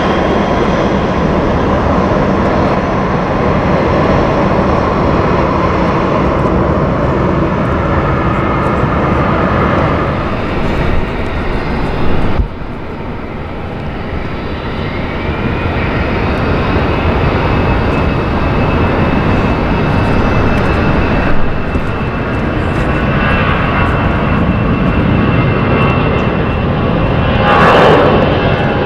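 Jet engines of a Boeing 737 climbing away after takeoff, a steady rush. After a sudden cut, an Airbus A320-214's CFM56 turbofans run at takeoff power on the takeoff roll, growing louder, with a fan whine that rises and then holds high.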